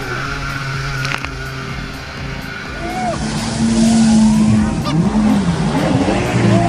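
Jet ski engine running and revving up and down over the rush of spray and water, getting louder about three seconds in.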